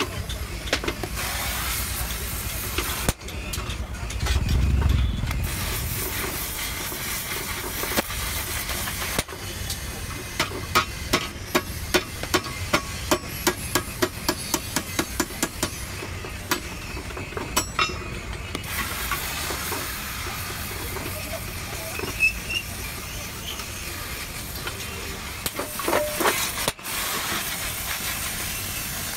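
Hammer striking a tubular steel carrier frame in a run of regular blows, about two a second, for some eight seconds, over a steady hiss. Near the end a gas welding torch is at work on a joint of the frame.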